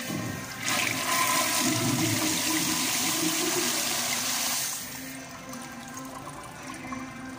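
2008 FV Franz Viegener Quantum Torino toilet flushing through its flushometer valve: a loud rush of water into the bowl that starts just under a second in and eases to a quieter running flow after about five seconds.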